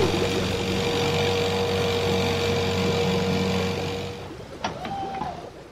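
A vehicle engine running steadily, with a steady hum and tone, fading out about four seconds in; a short gliding, voice-like sound follows near the end.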